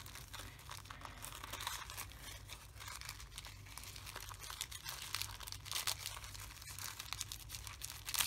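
Wrapping paper crinkling and rustling as hands turn and pull at a small wrapped gift, in soft, irregular crackles.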